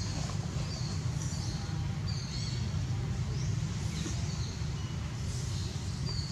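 Outdoor ambience: a steady low rumble throughout, with small birds giving short, high-pitched chirps several times in the trees.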